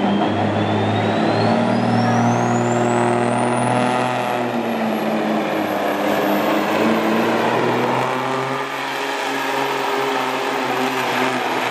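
Diesel semi-truck engine at full throttle under heavy load, pulling a weight-transfer sled. A high turbo whine climbs steeply over the first four seconds, then holds at a steady high pitch.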